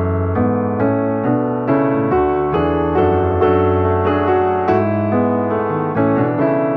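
Background piano music: notes and chords struck in a steady, even rhythm.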